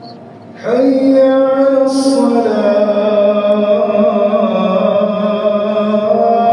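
Muezzin's call to prayer for Dhuhr carried over the mosque's loudspeakers: a single male voice chanting long, held melodic phrases. The voice comes in about half a second in.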